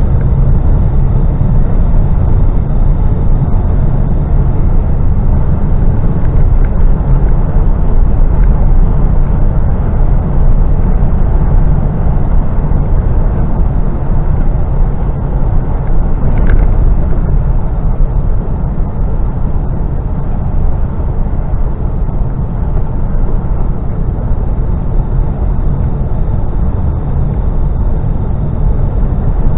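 Steady low rumble inside the cab of a Mercedes Actros lorry cruising at road speed: engine drone mixed with tyre and road noise.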